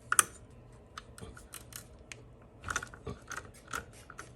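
Hand wrenches clicking and clinking on the shifter linkage's heim joint bolt and nut as they are worked loose: irregular sharp metallic clicks, a quick cluster right at the start and another run of them about three seconds in.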